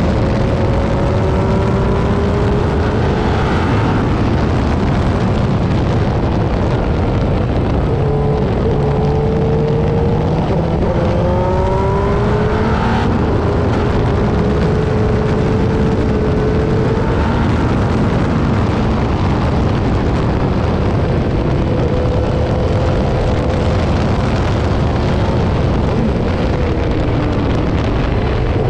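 Cosworth V8 engine of a historic AGS Formula 1 car running at speed, heard from on board. Its pitch climbs and falls as it is driven through the lap, with a sharp drop about thirteen seconds in.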